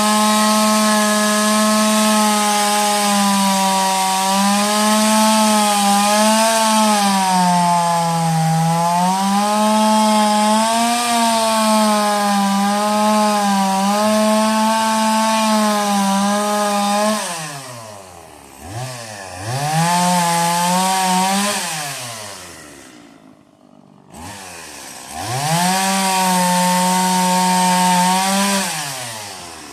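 Stihl chainsaw running at full throttle for about 17 seconds, its pitch wavering and dipping as it cuts through wood. It then drops to idle, revs up briefly twice, and falls back toward idle near the end.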